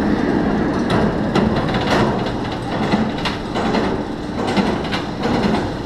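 B&M inverted roller coaster train rolling slowly through the station, a steady rumble of wheels on steel track with sharp metallic clacks about twice a second.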